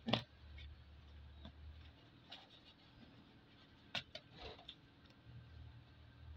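Small clicks and taps of a metal umbrella rib and wire being handled during a repair: a sharp click just at the start, then a few lighter ones around the middle. A low steady hum lies underneath.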